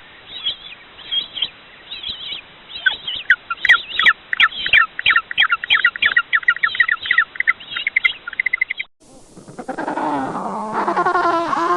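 Penguins calling. First a quick series of short, high, chirping calls, about three a second, then an abrupt switch to a different recording of many penguins braying at once in overlapping, lower-pitched calls.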